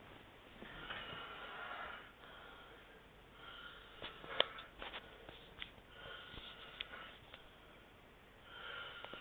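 Noisy, raspy snore-like breathing of a sleeper, one breath about every two and a half seconds, four in all, with a few sharp clicks in between.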